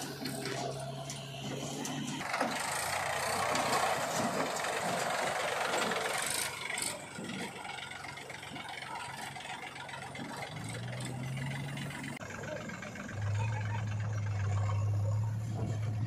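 Diesel engines of a JCB 3DX backhoe loader and a Mahindra tractor running at work, with a louder rushing noise for about four seconds a couple of seconds in. Near the end a strong, steady engine drone sets in as the backhoe raises a loaded bucket of mud.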